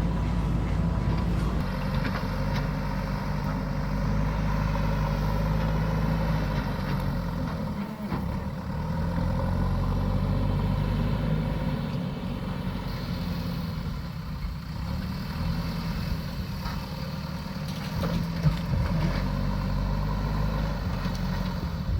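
JCB backhoe loader's diesel engine running steadily as it works, with a brief drop about a third of the way in and a few knocks near the end.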